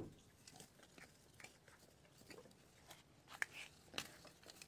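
Faint scratching and crunching of a hand cultivator's metal tines working through loose garden soil around a plant's base, with a few sharper clicks about three and a half and four seconds in.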